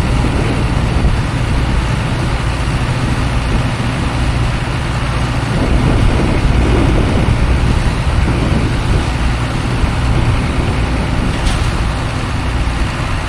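Cotton stripper's diesel engine running steadily under load, a low engine hum with broad machine noise over it.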